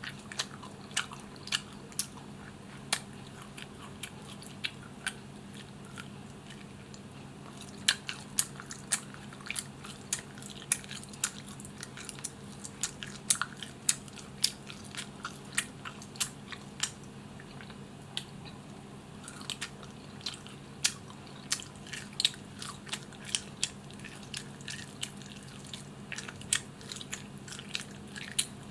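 Close-miked chewing and biting of barbecued chicken: irregular sharp, wet mouth clicks and smacks, sparser in the first few seconds and coming thick and fast after that, over a steady low hum.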